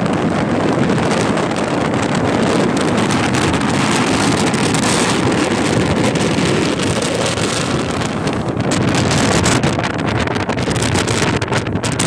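Strong wind buffeting the microphone: a loud, continuous rumbling noise that swells and eases with the gusts.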